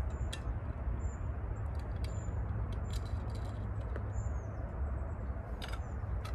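A small songbird gives thin, high chirps about once a second over a steady low rumble, with a few sharp clicks.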